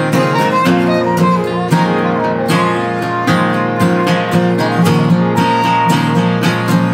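Acoustic guitars playing an instrumental passage: strummed chords under single-note lines that change every fraction of a second.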